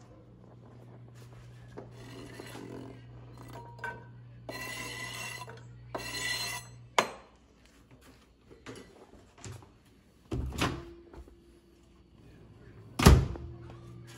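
Kitchen handling sounds: a knife on a plastic cutting board, then a frying pan and dishes knocked about on a gas range and stone counter, with a sharp click about seven seconds in and a loud clunk near the end, the larger knocks leaving a short ring. A low steady hum runs under the first half.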